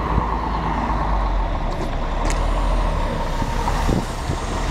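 A large road vehicle's engine running steadily, a low rumble under traffic noise, with a short click about two seconds in.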